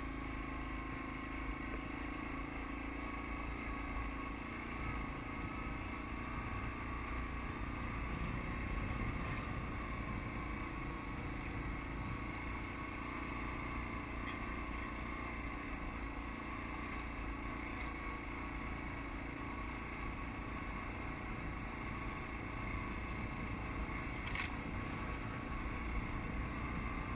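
An ATV's engine running steadily as it climbs a rough dirt track, heard from on board.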